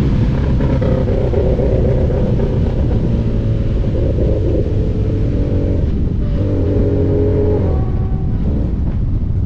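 Honda motorcycle engine running at speed under a heavy low rumble, its note coming through only in uneven patches. The rider suspects a misfire and loss of power, possibly from a Power Commander V fault.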